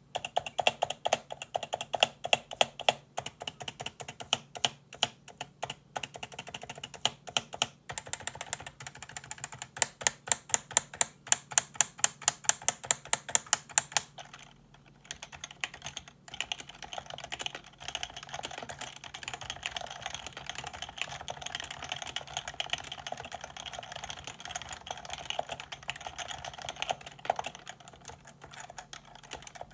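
Typing on an HHKB Professional 2's Topre electrocapacitive keys, stock and unlubricated. Separate keystrokes at first, including a fast, even run of about four to five strokes a second, then after a short pause, quick continuous typing.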